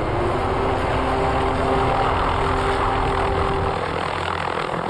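Small helicopter flying overhead: steady engine and rotor noise with a few held tones, its low rumble dropping away near the end.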